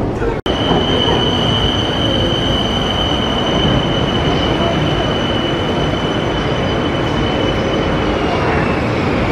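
Bangkok BTS Skytrain train pulling into an elevated station platform: rumbling wheel and running noise with a steady high-pitched whine that drops slightly in pitch near the end as the train slows to a stop.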